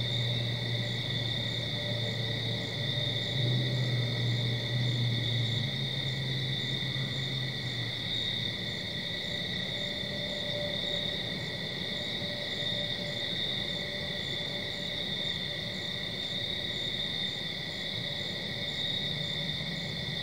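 Night chorus of crickets: a steady high trilling, with a fainter regular chirp pulsing above it about twice a second. A low hum underneath fades out about eight seconds in.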